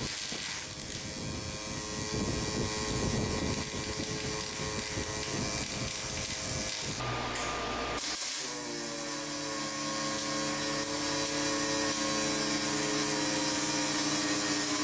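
Pulse MIG welding arc from an HTP ProPulse 220 running 0.030 steel wire under 90% argon / 10% CO2: a loud, harsh, steady buzz. It breaks briefly about seven seconds in, then carries on as a steadier, more tonal buzz and stops abruptly.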